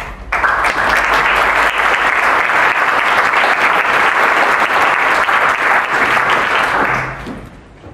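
Conference audience applauding, a dense steady clapping that begins abruptly and dies away near the end.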